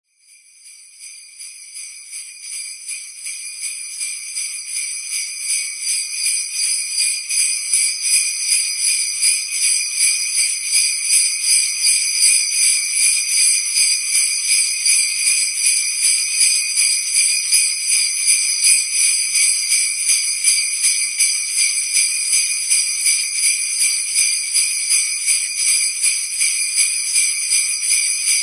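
Sleigh bells jingling in a steady rhythm, about two or three shakes a second. The sound fades in from nothing over the first several seconds, then holds at a constant level.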